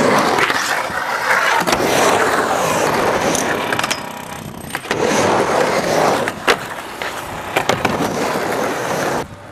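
Skateboard wheels rolling on a concrete bowl. A steady rolling noise swells and fades as the riders carve, broken several times by sharp clacks of the board and trucks hitting.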